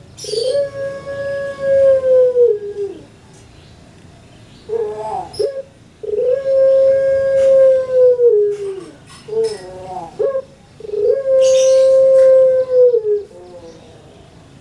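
Caged collared dove (puter) cooing: three long drawn-out coos, the second and third each led in by a quick run of short notes. Each long note is held steady, then slides down at the end.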